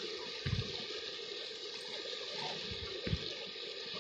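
Steady rush of a fast-flowing river, with two brief low thumps, one about half a second in and one about three seconds in.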